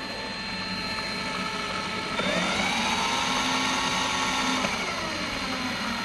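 Electric drill motor spinning a plastic fan blade: a steady whirring hum that speeds up, rising in pitch about two seconds in, holds, then winds down again near the end.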